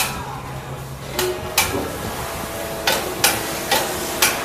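Sharp metal-on-metal clanks, six or seven of them at irregular intervals roughly half a second apart, some leaving a brief ringing tone. A low steady hum underneath stops a little over a second in.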